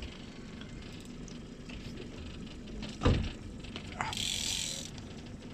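Fishing reel being worked on a rod, with faint ratcheting mechanical clicking. A single low thump comes about three seconds in, and a short hiss just after four seconds.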